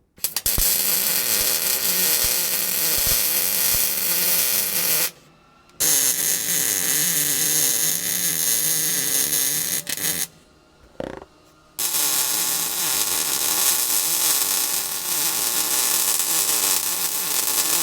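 Welder running on sheet steel in three long, steady hissing runs of about five, four and seven seconds, with short pauses between them.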